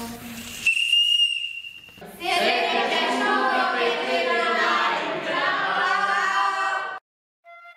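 A model steam engine's boiler whistle blows one steady high note for about a second. Then a group of young voices call out together for several seconds and stop abruptly.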